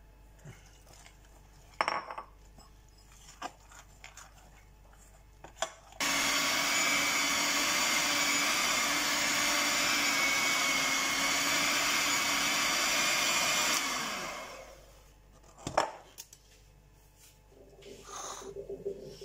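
Electric hand mixer with dough hooks running steadily, mixing flour and water into bread dough. It switches on abruptly about six seconds in and winds down about eight seconds later. A few light knocks come before it, and one sharp knock comes after.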